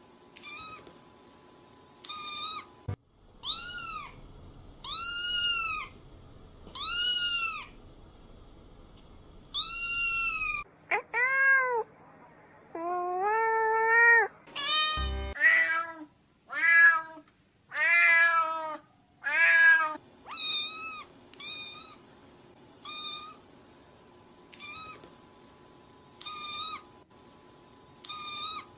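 Domestic cats meowing again and again: about twenty separate meows, each rising then falling in pitch. The high, short meows give way in the middle to a few lower, longer, drawn-out ones, then the short high meows return.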